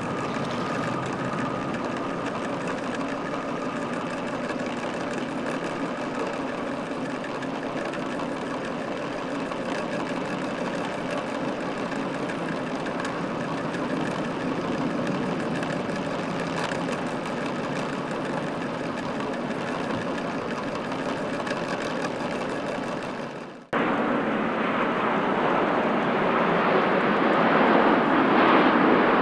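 The Pratt & Whitney PW4000 jet engines of a Korean Air Airbus A330-300 run steadily as it departs. Near the end there is a brief cutout, then a louder, rising jet roar from a Boeing 787-9.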